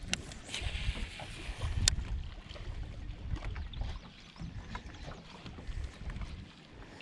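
Wind rumbling on the microphone and water lapping at a boat's hull during a cast with a baitcasting rod and reel: a brief hiss as line runs off the spool, two sharp reel clicks, near the start and about two seconds in, then light ticking as the reel is wound in.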